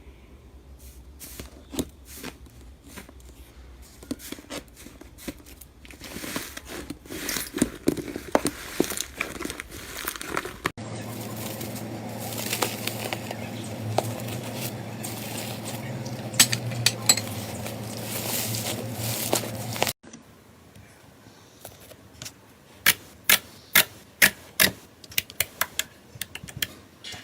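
Slime being squeezed and stretched by hand, giving sticky crackling and clicking pops. It comes as three short clips cut together, about a third of the way in and two thirds of the way in. The last clip ends in a run of sharp, separate pops.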